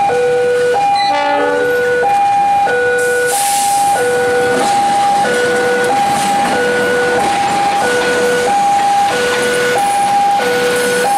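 Railway level-crossing warning alarm sounding its electronic two-tone call, a high tone and a low tone alternating about once every 1.3 seconds, while a diesel-hauled passenger train passes over the crossing. A short horn sounds about a second in, and the train's wheel and rail noise rises from about three seconds on.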